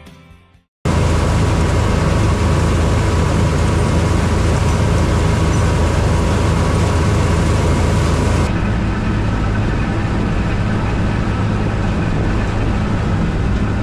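Heavy harvest machinery, a combine harvester or tractor, running steadily with a loud low engine rumble. It cuts in abruptly about a second in, and about eight seconds in the sound changes, losing much of its high hiss.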